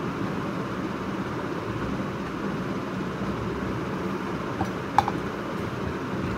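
Steady hiss and low hum of a running ceiling fan, with a short metallic clink about five seconds in as a steel tumbler is set down on the table.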